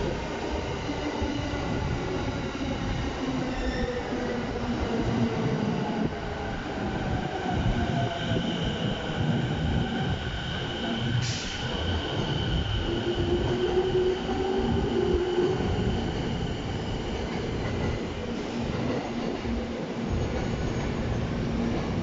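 A 15-car electric commuter train pulling into the platform and slowing to a stop. Its low rumble runs under electric motor whines that slide slowly in pitch, with a high steady wheel squeal in the middle and a brief sharp noise about eleven seconds in.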